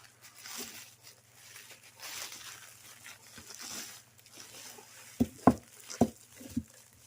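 Packing material rustling as a wrapped item is unwrapped by hand. Then come five or six quick sharp taps and knocks as the item is handled.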